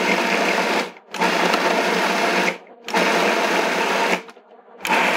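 Food processor motor pulsing on pieces of chicken, running in bursts of about a second and a half with three short stops between them, chopping the meat down.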